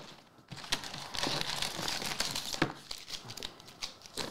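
Plastic and foil packaging crinkling and rustling as a trading-card box is handled and its foil-wrapped packs are pulled out, with scattered light clicks.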